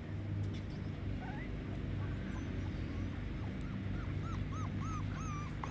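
Pembroke Welsh corgi puppy whimpering: short high whines, two or three a second, coming more often and louder toward the end.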